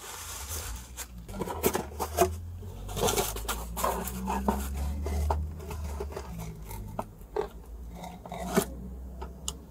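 Takeout food packaging being handled and opened: scattered clicks, scrapes and rustles, with a low hum underneath through the middle few seconds.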